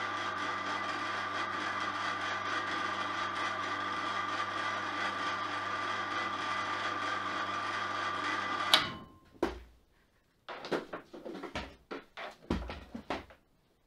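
Electric hoist motor running steadily with a low hum and a thin whine, cutting off with a click about nine seconds in. A few separate knocks and clatters follow.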